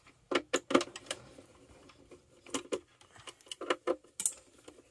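A series of short, sharp clicks and taps from screws and hard plastic toy parts being handled, in small groups, with one brighter metallic clink a little after four seconds.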